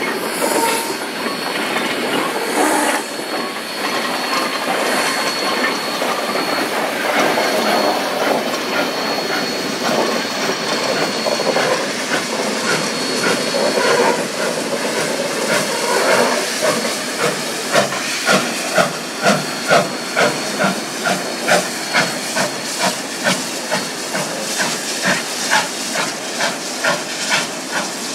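Narrow-gauge steam locomotive, a D&RGW K-37 class 2-8-2, rolling slowly past with a freight car and hissing steam, with a thin high whine in the first half. From a little past halfway its exhaust chuffs come through at a slow, steady beat of about two a second as it works away.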